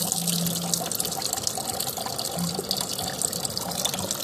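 Steady hiss of rain falling, with water streaming and splashing off a person's face and chest as he washes under it.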